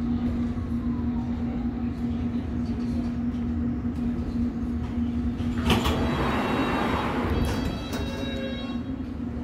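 District line Underground train running with a steady low rumble and a constant motor hum. About six seconds in comes a sudden loud hiss of air, followed by a run of high electronic beeps near the end, typical of the train's doors working at a station stop.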